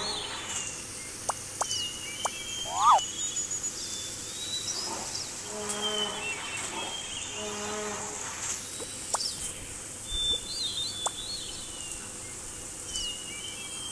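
Outdoor nature ambience of insects buzzing and birds chirping, with a quick rising chirp about three seconds in and a few short pitched animal calls.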